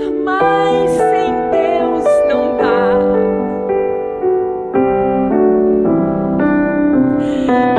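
A woman singing a slow worship song into a microphone, her held notes wavering with vibrato, over sustained keyboard chords.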